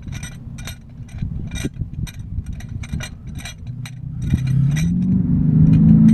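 Light metallic clicks and rattles of a large C-clamp's screw being wound open by hand. About four seconds in, a passing vehicle's engine comes up, rising in pitch and getting louder as it speeds by.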